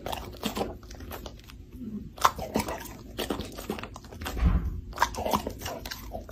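Dog biting and chewing a piece of cooked chicken breast: a run of sharp, separate wet crunches and smacks, with a low thump about four and a half seconds in.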